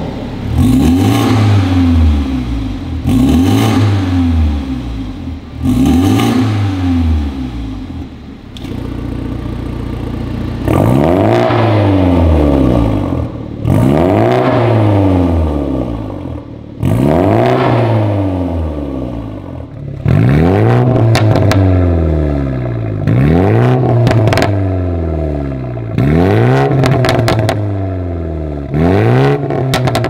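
BMW 330i's B48 2.0-litre turbo four-cylinder, running through a Fi Exhaust valved catback and catless downpipe, being blipped again and again while parked, each rev rising and falling away, about every two and a half seconds, with a short idle between blips partway through. Exhaust valves are closed in the first part and open later, and the later revs crackle and pop as they fall.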